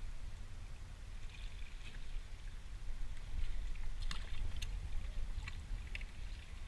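Water lapping and slapping against a plastic fishing kayak's hull over a steady low rumble, with a few sharp taps in the second half.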